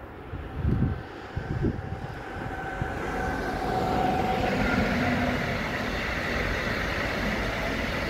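Electric container train, a Siemens Smartron locomotive with loaded container wagons, passing on the rails: the rolling noise of wheels on track grows louder over the first few seconds, then holds steady as the wagons go by. Two short low thumps come about a second in.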